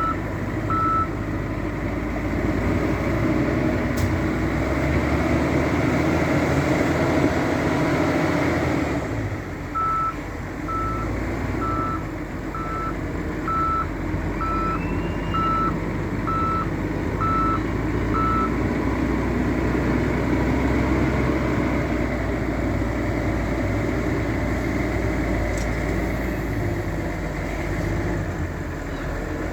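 Heavy diesel engine of a working wheel loader running throughout, swelling for several seconds before easing back. A reversing alarm beeps once or twice at the start, then about once a second for some eight seconds in the middle as the machine backs up.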